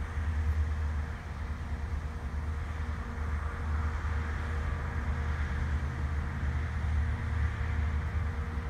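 Wind rumbling on the microphone in open ground, over a faint steady hum.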